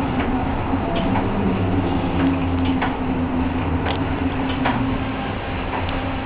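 Ganz ICS articulated tram running along the track, heard from on board: a steady motor and running-gear hum with scattered clicks and rattles.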